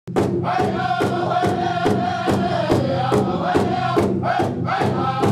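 Opening music: group chanting voices over a steady drum beat, a little over two beats a second.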